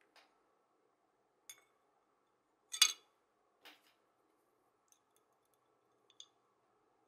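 Light clinks of metal tweezers and small toy-car parts against a glass jar of paint remover: about six short taps, the loudest a brief rattle about three seconds in.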